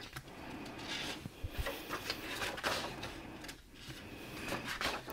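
Paper pages of a spiral-bound workbook being turned by hand: rustling and swishing of the sheets, with light handling noises.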